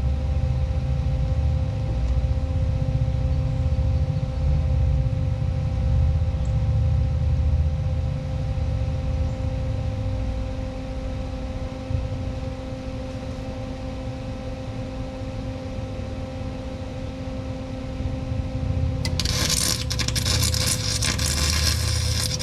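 Low rumble and steady electrical hum, then, about nineteen seconds in, an electric welding arc crackles loudly for about three seconds as a lug nut is welded onto an old bolt.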